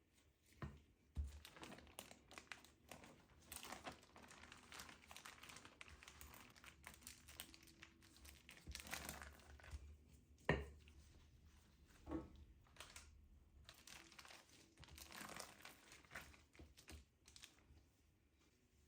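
Packaging or wrapping being handled, crinkling and rustling with scattered clicks. There is a sharp knock about ten and a half seconds in and a lighter one a little after twelve seconds.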